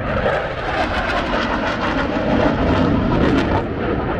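Saab J35 Draken jet fighter flying past, with the steady, loud rushing noise of its turbojet engine.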